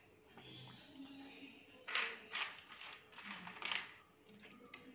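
Faint, scattered rustles and light clicks of fried cashews and raisins being picked from a bowl by hand and dropped onto biryani rice in a pan.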